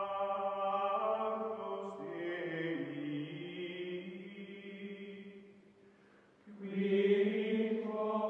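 Outro music of voices singing long held chords in a chant-like style. One phrase shifts pitch about two seconds in and fades away, then a louder held chord comes in near the end.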